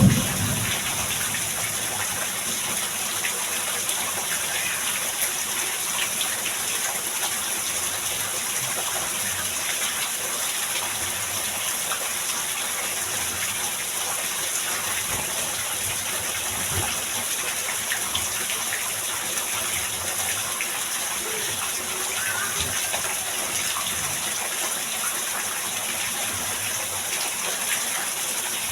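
Heavy rain pouring down in a steady, dense hiss, with scattered sharper drops.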